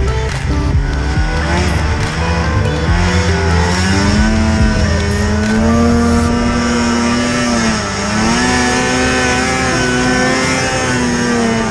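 Polaris RMK snowmobile's two-stroke engine running hard under throttle, its pitch climbing over the first few seconds, dipping briefly about eight seconds in, then rising again.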